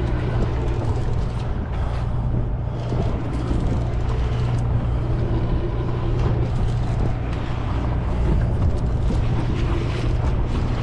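Sportfishing boat's engine running steadily, a constant low drone with a hiss over it.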